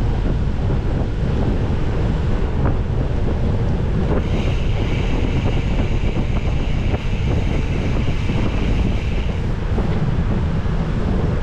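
Wind buffeting the microphone of a bicycle-mounted action camera while riding, a loud steady rumble. A higher hiss joins for about five seconds in the middle.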